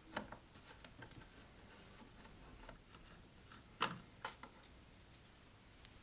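A screwdriver undoing the screws that hold a receiver's front panel: a few faint, scattered clicks in a quiet room, the clearest about four seconds in.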